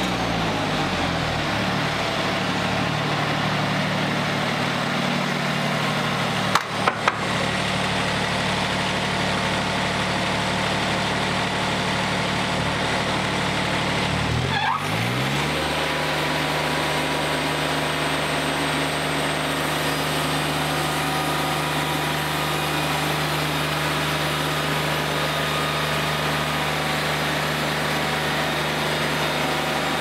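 Wood-Mizer LT40 Wide portable sawmill's engine running steadily. Its speed drops right at the start, then dips and picks back up about halfway through. There are three sharp knocks about six and a half seconds in.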